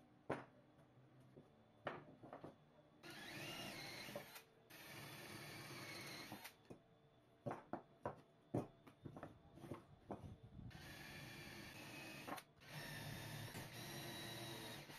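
DeWalt cordless drill boring holes into plywood in four runs of about two seconds each, two a few seconds in and two near the end. Between the runs, wooden pieces knock and clack as they are handled and set down on the bench.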